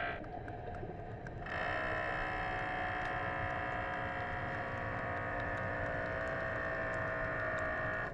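Steady machine hum made of several held tones, which cuts in sharply about a second and a half in and then holds level, with faint scattered clicks.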